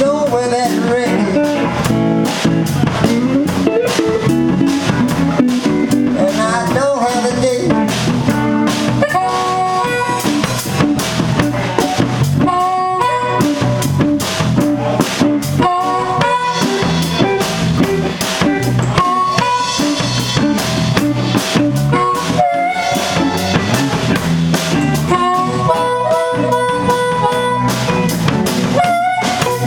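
Live blues band playing an instrumental passage. A harmonica is cupped against a vocal mic and played through the PA, with electric guitar, electric bass and a drum kit keeping a steady groove underneath.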